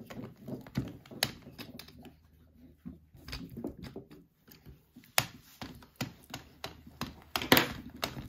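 Addi Egg hand-cranked i-cord knitting machine being turned: its six needles and plastic gearing give off irregular clicks and clacks as the cord forms, with a louder clack about seven and a half seconds in.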